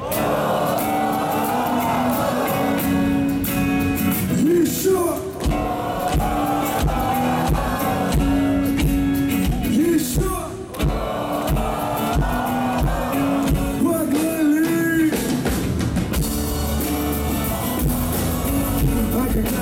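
Live song: a steady electronic beat under a sung melody.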